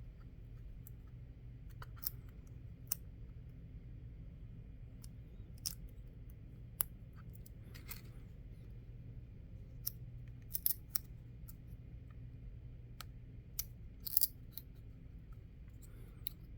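Plastic housing and battery cover of a Blink video doorbell being handled: scattered sharp clicks and light crinkles, several in quick clusters, over a low steady hum.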